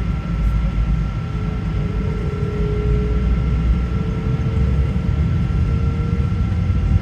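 Boeing 777-200 airliner's jet engines running, heard as a loud, steady low rumble with a steady high whine over it. A fainter tone comes in about a second in, rises slightly, and fades out near the end.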